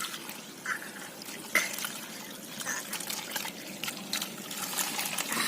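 Water splashing and dripping in irregular small splashes, as from fish traps being handled in shallow water.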